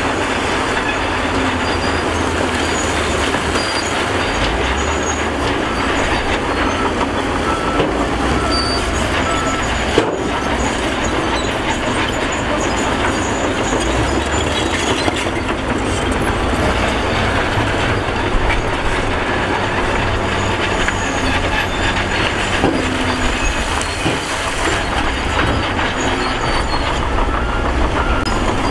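Diesel engines of a tipper dump truck and a wheel loader running, with a steady clatter of broken stone sliding and tumbling out of the truck's raised bed.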